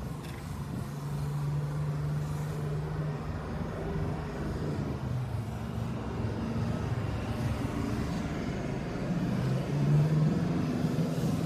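Nissan S15 Silvia's SR20 four-cylinder engine running at steady, fairly low revs, with small changes in pitch and a brief rise in revs and loudness near the end.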